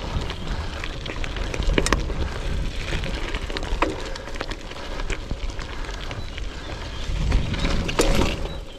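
Gravel bike rolling along a gravel track: tyres crunching over the stones, with wind rumble on the microphone and a few sharp knocks and rattles from the bike, the loudest near the end.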